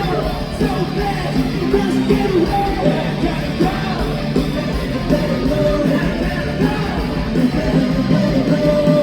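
A rock band playing live, with electric guitar, drums and vocals, at a steady high volume.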